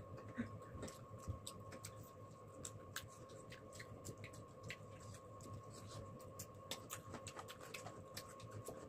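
Faint chewing and mouth clicks of someone eating: small irregular smacks several times a second over a faint steady hum.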